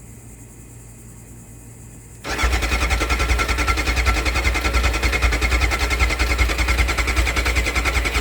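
Yamaha YZF600's starter motor cranking the four-cylinder engine. It starts about two seconds in and turns over steadily without catching: the bike won't start, a fault a friend put down to the carburettors.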